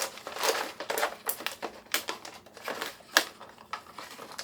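Zip-top food storage pouches being handled, a run of irregular crinkling rustles and sharp clicks.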